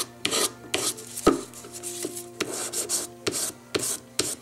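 220-grit emery paper on a wooden sanding block rubbed back and forth over a metal jewellery piece, with short rasping strokes about two a second and a single knock about a second in. The sanding brings out the ring that the cabochon has pressed into the metal, showing where the bezel must be opened further.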